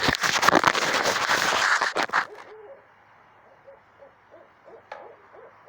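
Loud crackling noise on the microphone for about two seconds, then a series of short, faint hooting notes from an owl calling at night.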